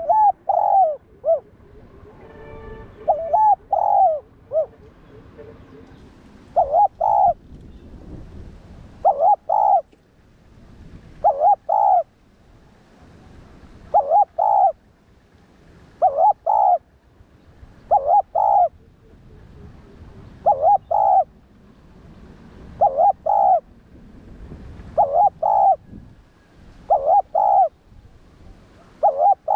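Spotted dove cooing its song over and over: a short phrase of two or three coos about every two seconds.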